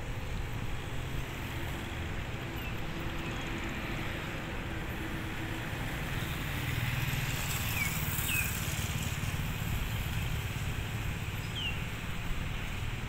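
KTM Class 83 electric multiple unit approaching at low speed: a steady low rumble that swells a little past the middle. A few short high chirps sound over it.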